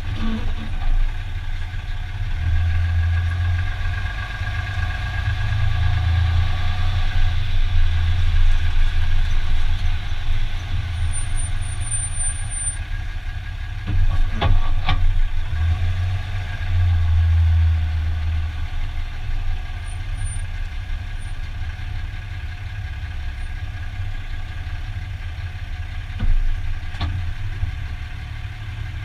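Dodge Ram 2500 pickup's engine running low and steady at parking-lot speed, with a whine over the first several seconds. A couple of sharp knocks come about halfway through and another near the end: the drivetrain noise the owner is trying to capture while parking.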